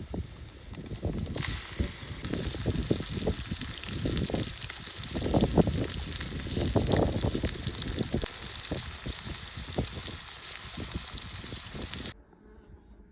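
Food sizzling in a pan over a campfire, with small crackles and wind gusting on the microphone; it cuts off suddenly near the end.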